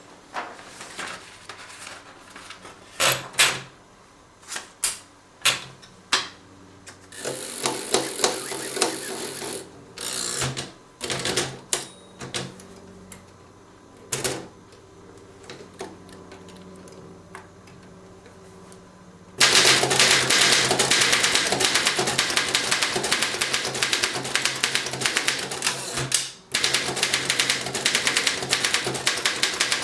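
1926 Underwood No. 5 manual typewriter: a few scattered clicks and handling noises at first, then about two-thirds of the way in, fast, steady typing with the typebars striking the platen in quick succession, broken by one short pause.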